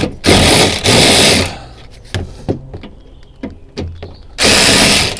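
Cordless power driver run in short bursts of half a second to a second on a stubborn bolt in the front wheel arch, with small clicks and knocks between the bursts.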